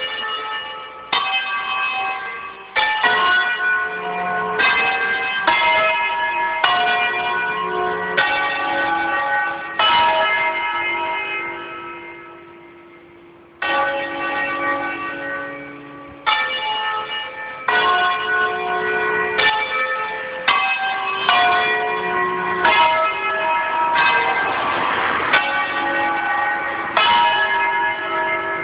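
Church bells ringing in an irregular, overlapping peal: strike after strike at uneven intervals, each note ringing on under the next. About ten seconds in the strikes pause for a few seconds and the ringing fades before they resume.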